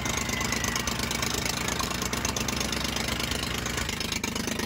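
Mahindra diesel tractor engine running steadily under heavy load, pulling against another tractor in a tug-of-war. The engine note shifts slightly near the end.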